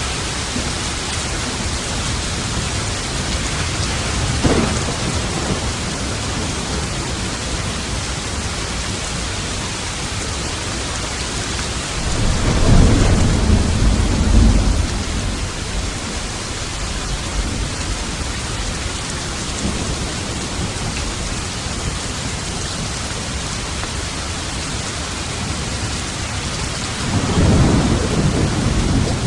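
Steady rain hissing throughout, with thunder: a short sharp crack about four seconds in, a longer low rumble around the middle, and another rumble starting near the end.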